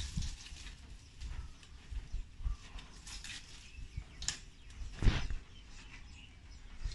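Green coconut palm leaflets rustling and crackling as they are threaded and pulled tight while weaving a hat brim, in irregular handling sounds with a sharper crackle about five seconds in.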